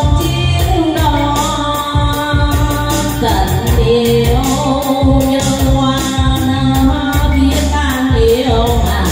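A woman singing into a microphone over a loud amplified backing track with a steady beat, drawing out long notes that glide between pitches.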